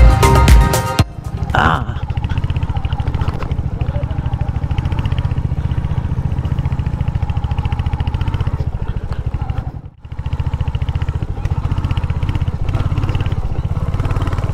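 Royal Enfield Hunter 350's 349cc single-cylinder engine running steadily through its stock exhaust, a deep, bassy, not very loud thump. Music cuts off about a second in, and the engine sound breaks off briefly about ten seconds in before resuming.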